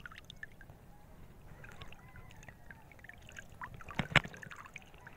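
Lake water lapping and dripping beside a small fishing boat, with light splashes and ticks throughout. A sharp double knock comes about four seconds in.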